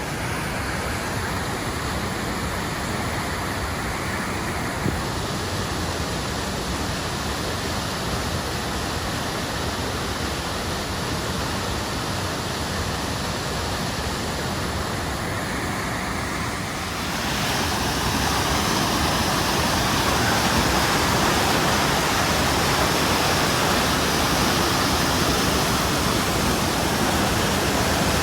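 Rushing water of a cascading mountain creek, a steady rush that grows louder and brighter about seventeen seconds in.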